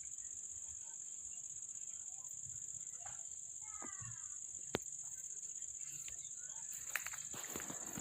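Insects, most likely crickets, chirring in one steady high-pitched drone. A sharp click comes a little past halfway, and a few more clicks near the end.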